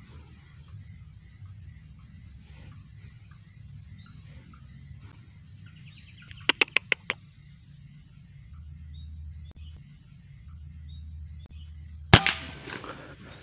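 A single sharp rifle shot near the end, fired at a junglefowl through the scope, with a short tail after the crack. About halfway through, a bird gives a quick run of five high calls over a low steady rumble.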